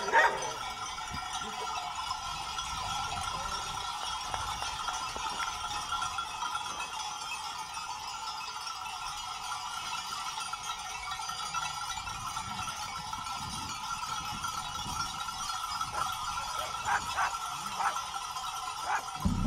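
Many bells on a running flock of Sarda sheep, jingling and clanking without pause, with a few louder clanks near the end.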